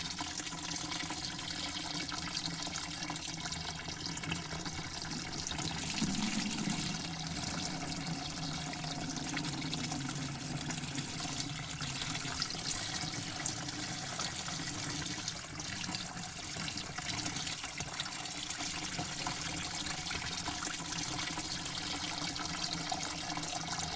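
Water running in a steady, unbroken flow, swelling slightly about six seconds in.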